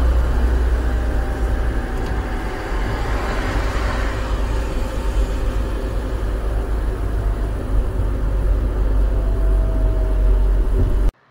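A car driving on wet asphalt, heard from inside the cabin: a steady low engine and road rumble with the hiss of tyres on the wet road. It cuts off suddenly near the end.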